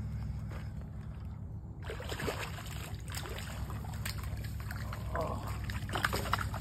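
A hooked fish splashing and thrashing at the water's surface as it is reeled up to the bank, starting about two seconds in, over a steady low hum.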